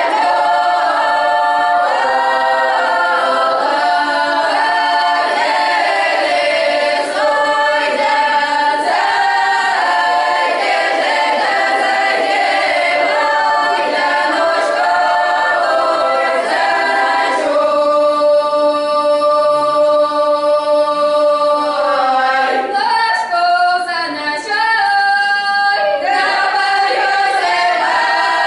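Children's folk ensemble singing a traditional Russian song a cappella, several voices together, with a long held chord about two-thirds of the way through before the melody moves on.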